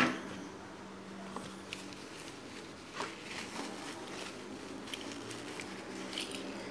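Thin plastic wrapping being handled and pulled off a toy, rustling and crinkling in scattered faint crackles, with a sharp knock at the very start.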